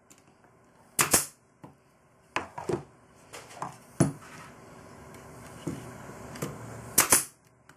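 Pneumatic brad nailer firing two shots about six seconds apart, each a sharp pop, driving brads into wood. Lighter clicks and knocks from handling the tool and the wood come in between.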